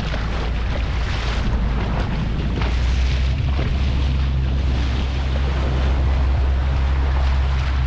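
Powerboat engine running under way, a steady low drone that grows stronger about three seconds in, with water rushing against the hull and wind buffeting the microphone.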